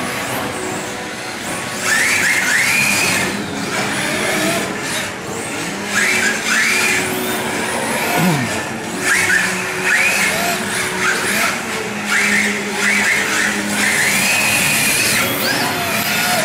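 Radio-controlled drift cars sliding on an indoor track: repeated short tyre squeals that rise and fall in pitch, starting about two seconds in and coming in clusters, over a steady running hum.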